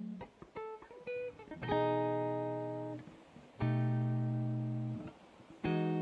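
Background music on guitar: a few short picked notes, then chords struck about every two seconds, each left to ring and fade.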